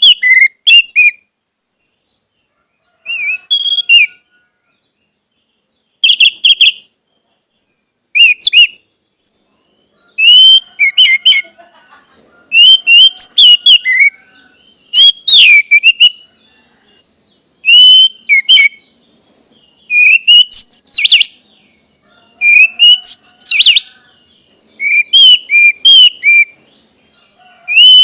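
Orange-headed thrush (anis merah) singing loud, short whistled phrases. They come a few seconds apart at first, then follow each other closely from about ten seconds in, over a steady high hiss.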